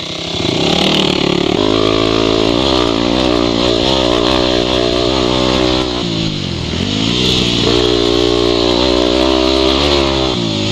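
Yamaha WR250 dirt bike's single-cylinder four-stroke engine under way, its pitch rising and falling with the throttle. The revs drop sharply about six and a half seconds in, climb again, and fall away near the end.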